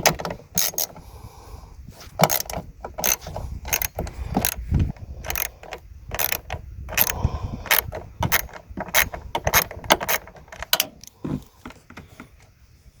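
Ratchet wrench with an 8mm socket working a nut that holds a car tail light assembly: a run of irregular clicks and small metal knocks.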